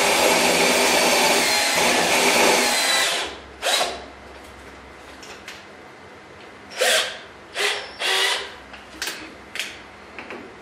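Cordless drill boring into steel square tubing, running steadily for about three seconds before stopping. About a second later it whirs briefly once, then gives several short bursts over the next few seconds as the drill's keyless chuck is worked by hand.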